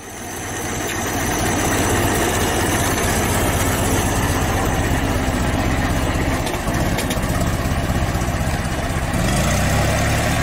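Ford Model T's 2.9-litre side-valve inline four-cylinder engine running steadily with an even, rapid low pulsing. The sound fades in over the first second or so and shifts slightly in tone near the end.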